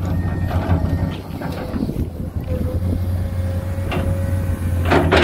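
Komatsu PC210 hydraulic excavator's diesel engine running under load as it digs, with a thin steady whine partway through. Two sharp clanks come about four and five seconds in, the second the loudest.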